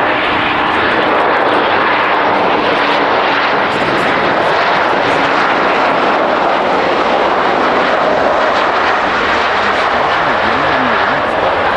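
Embraer 190 twin-engine jet airliner landing, its turbofan engines running with a loud, steady noise. A faint steady tone is heard under it for the first few seconds.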